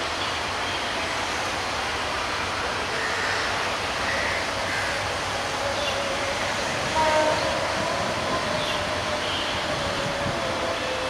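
Diesel-hauled passenger train running away along the track, a steady even rumble of wheels on rail. Faint wavering tones rise above it about seven seconds in.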